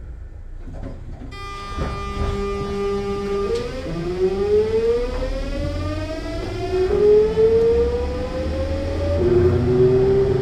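VVVF inverter and traction motors of a Sotetsu New 7000 series electric train pulling away. A steady whine starts about a second in, then from about three and a half seconds rises in pitch as the train accelerates, jumping to new tones twice near the end.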